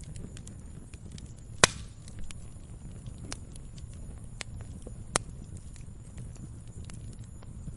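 Log fire crackling in a fireplace: scattered small cracks and snaps over a low steady rumble of the flames, with two loud pops about a second and a half in and again about five seconds in.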